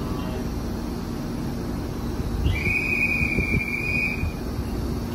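A single steady whistle blast, a high tone lasting a little under two seconds from about halfway in. Beneath it runs the steady low hum of the Hokuso Railway 7500-series electric train standing at the platform.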